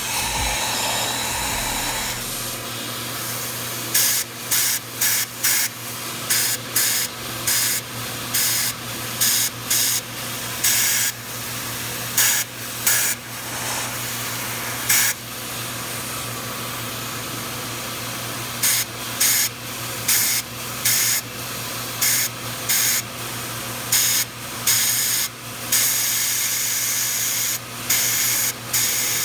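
Walnut media blaster gun firing into an intake port of an Audi 4.2 L V8 in short, sharp bursts about once or twice a second, with a pause partway through, to scour carbon buildup off the intake valves. Underneath, a vacuum runs steadily to draw out the spent walnut shell and carbon.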